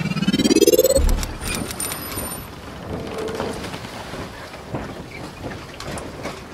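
Sound effects for an animated intro: a rising swoosh that climbs in pitch over the first second and ends in a deep boom, then a steady hissing rumble with scattered crackles.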